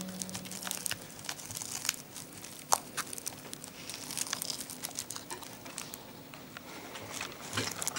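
Plastic sheeting crinkling and crackling under hands working on a wrapped coil, a quiet irregular run of small clicks and rustles.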